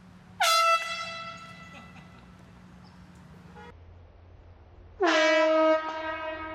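Two blasts of a handheld air horn: a short high one about half a second in, then a longer, lower one near the end. Each dips slightly in pitch as it starts and trails off as it dies away.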